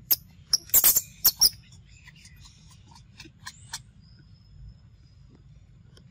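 Macaques' short sharp squeaks, a quick run of loud ones in the first second and a half, then a few fainter ones.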